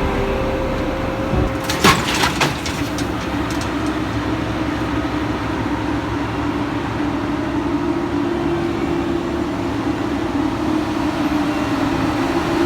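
Heavy harvest machinery engine running steadily at working speed. About two seconds in, a quick series of sharp metallic knocks.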